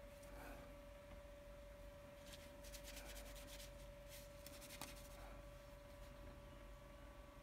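Near silence: room tone with a steady faint hum. About two and a half seconds in comes a second of faint, rapid scratchy rubbing, then a single small click.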